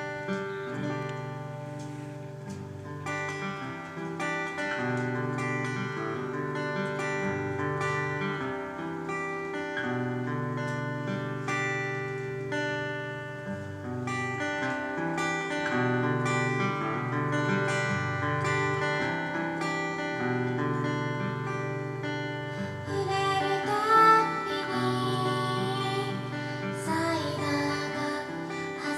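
Acoustic guitar playing a song's intro in strummed chords, and a woman's singing voice comes in near the end.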